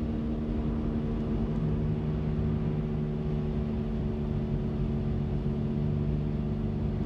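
Car interior while driving: a steady low drone of engine and road noise, with a low hum that grows a little stronger about a second and a half in.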